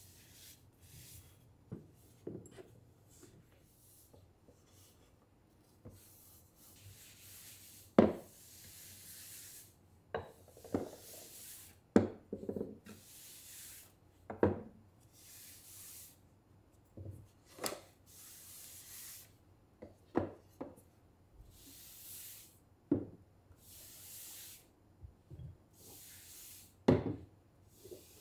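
A cloth wiping a wooden sideboard top in repeated strokes, each about a second long, with a sharp knock every few seconds as ceramic vases and ornaments are set back down on the wood.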